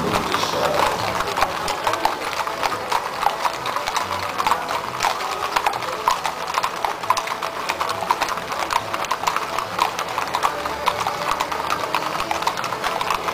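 Many horses' hooves clip-clopping on a paved street: a dense, steady run of overlapping hoof strikes as a line of riders walks past.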